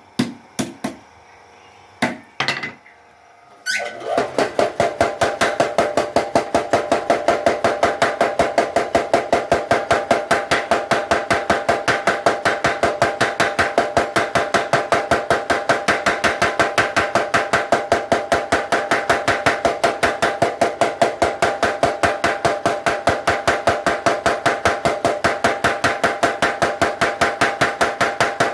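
Blacksmith's mechanical power hammer flattening hot steel. A few separate blows, then about four seconds in a fast, steady run of blows with a metallic ring.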